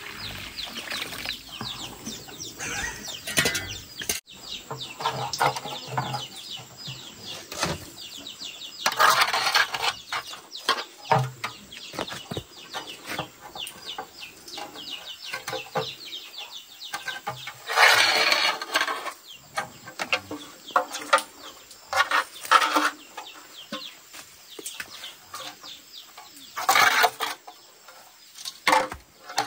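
Chickens clucking and calling, with louder, drawn-out calls about every nine seconds. Water pours from a bucket onto soil near the start.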